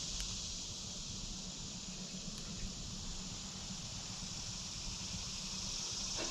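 Steady chorus of summer insects: a constant high-pitched buzz with no break.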